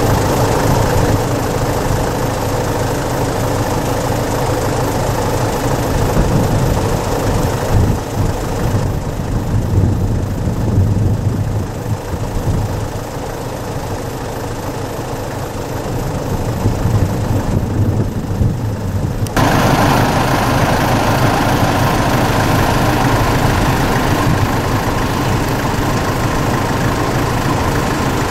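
A vehicle engine idling steadily, its sound changing abruptly about nineteen seconds in.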